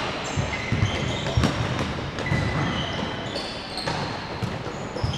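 Futsal play on an indoor court: trainers squeaking on the floor in short high squeaks, and the ball being struck with a few sharp knocks.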